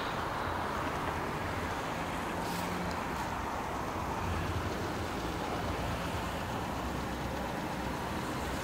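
Steady running-vehicle noise: an even hum with an uneven low rumble underneath, and a faint brief tick about two and a half seconds in.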